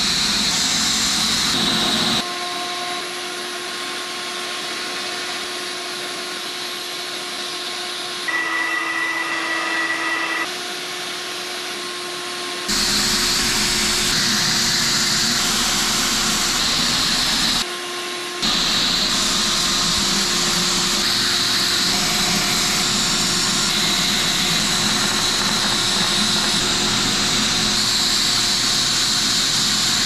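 Electric narrow-belt power file sanding the joints of a bamboo bike frame, with a vacuum hose drawing off the dust: a steady motor whine over a loud hiss. The level and pitch change abruptly several times.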